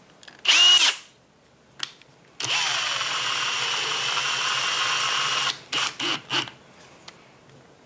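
Battery-powered drill running steadily for about three seconds with a fixed high whine over a low hum, then stopping, followed by a few short clicks. A short loud burst comes about half a second in.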